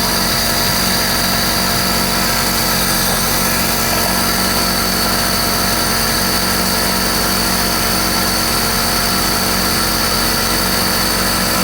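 Portable tyre compressor running steadily while inflating a car tyre.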